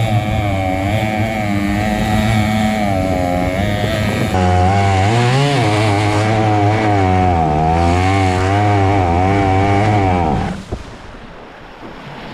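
Stihl 088 two-stroke chainsaw engine driving a mini longtail boat at high revs, its pitch wavering up and down as the boat meets the chop. About ten seconds in it dies away with falling pitch, out of fuel, leaving wind and splashing water.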